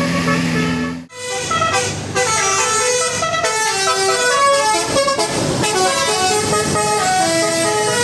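A bus's Basuri telolet multi-tone air horn playing a quick tune of short notes stepping up and down in pitch, starting about a second in.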